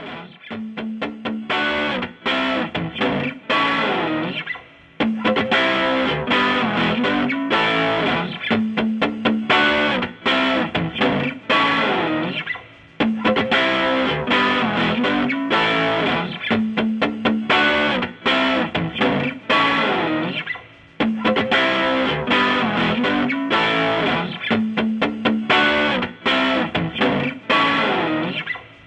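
Music: a distorted electric guitar riff played in repeating phrases, each about eight seconds long.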